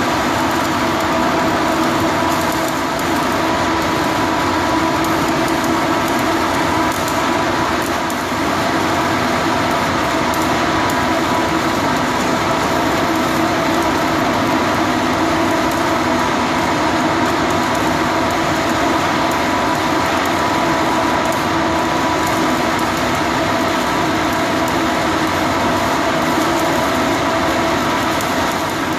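Steady machine drone: a constant hum over an even hiss, with no breaks or changes.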